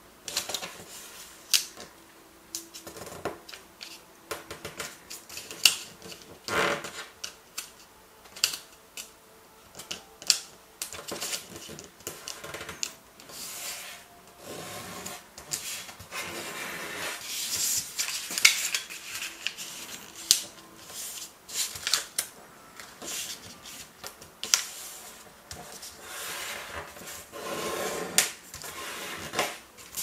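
A sheet of origami paper being folded by hand: crisp paper rustles and many light ticks as it is handled, with a few longer sliding rustles as the creases are pressed flat against the table.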